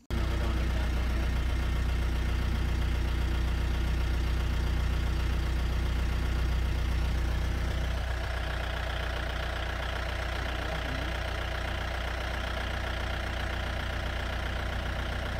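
Safari jeep engine running, heard from inside the vehicle: a loud, steady low hum that starts abruptly and eases slightly about eight seconds in.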